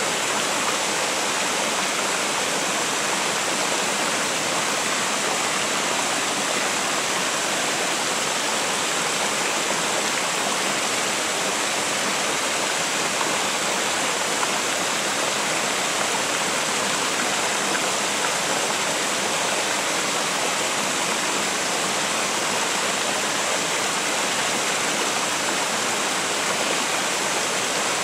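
Mountain river water spilling over a low stepped weir into a shallow rocky pool: a steady rushing splash with no breaks.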